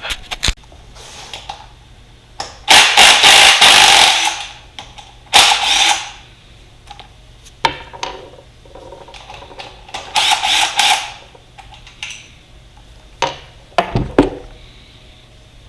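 Handheld power tool running in three short bursts, the first and longest about a second and a half, with sharp metal clicks and knocks between them.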